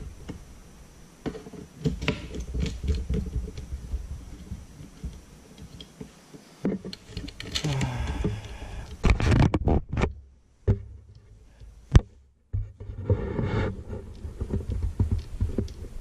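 Plastic and aluminum parts of a portable fishing rod rack being handled and pressed together: scattered clicks, knocks and scrapes, with one sharp snap about twelve seconds in.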